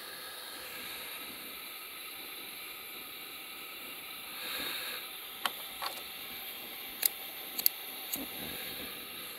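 Steady hissing of the fire and the boiling broth under a large paella pan as the heat is turned down to its lowest, swelling briefly about halfway. Five sharp clicks come in the second half.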